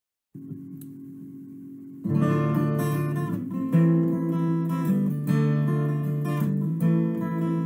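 Acoustic guitar music: after a moment of silence a quiet held low note sounds, then strummed acoustic guitar comes in about two seconds in and plays on steadily.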